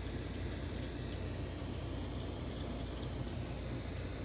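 Heavy rain coming down in a steady downpour, a constant even rush of falling water.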